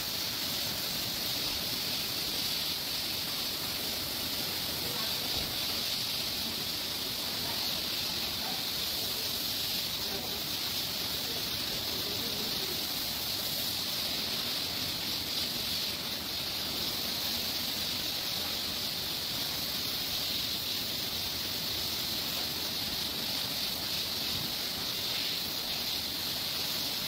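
Pressure-washer wand spraying water: a steady, even hiss that runs without a break.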